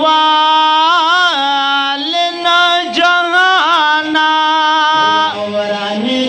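Men singing a Pashto naat without instruments, drawing out long held notes with wavering ornaments rather than clear words; the pitch dips near the end and rises again.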